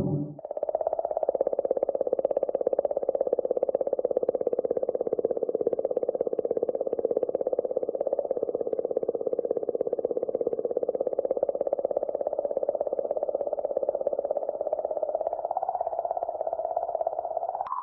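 Sonified space recording, the kind made from spacecraft radio and plasma-wave data: a steady drone made of very rapid pulses, like a fast buzz, with a light crackle on top.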